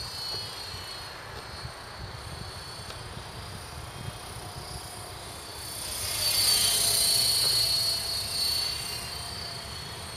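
KDS 450 electric RC helicopter in flight: a steady high-pitched motor and rotor whine over a low hum. It grows much louder for a couple of seconds from about six seconds in, then fades back.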